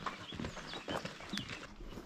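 Footsteps of hikers walking on a trail: a run of irregular short steps and scuffs.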